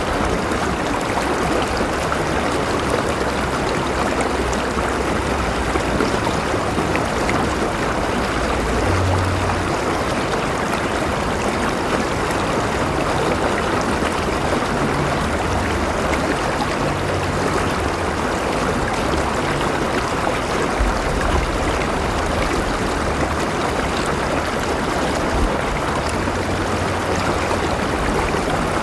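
River water flowing over rocks, a steady rushing and gurgling.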